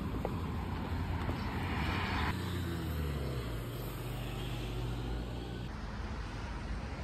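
A motor vehicle running with a steady low rumble, its engine note dropping a little about two and a half seconds in.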